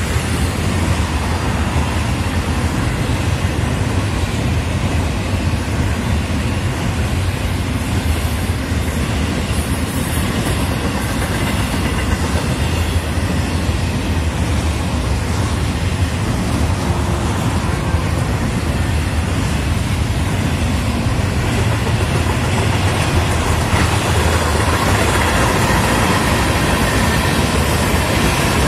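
Freight train cars rolling past: a steady rumble of steel wheels on the rails as double-stack container well cars, then hopper cars and boxcars, go by.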